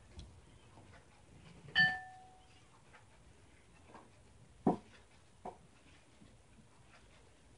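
A hard knock with a short ringing tone about two seconds in, then a duller knock near five seconds and a fainter one just after, as household objects are bumped during a kitten's play.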